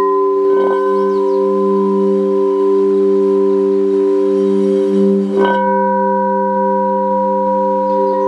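Crystal singing bowls sounding together in a sustained chord of several steady tones that slowly waver, kept singing by a mallet rubbed around the rim. There are brief soft knocks about half a second in and again about five and a half seconds in.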